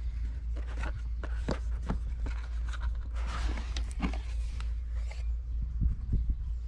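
Cardboard gimbal box being handled and opened: scattered light knocks and scrapes, with a rustling slide of cardboard about three seconds in, over a steady low rumble.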